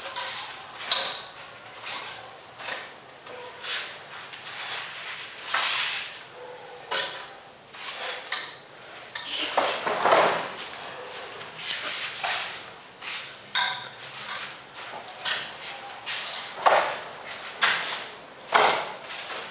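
Repeated short swishes of a wooden long staff (jang bong) swung and spun through the air, mixed with knocks of bare feet and the staff on the training mats. About ten seconds in there is a longer rustling thud as the performer rolls across the mat.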